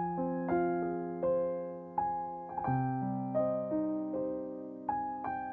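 Background piano music: gentle single notes and chords struck every half second to a second, each fading away.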